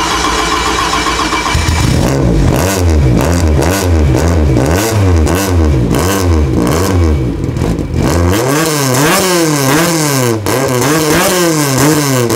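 Mark II Ford Escort rally car's Toyota 1.6-litre twin-cam four-cylinder engine, just started, running for a moment and then revved in repeated quick blips of the throttle, each a rise and fall in pitch, about two a second, slowing somewhat in the later part.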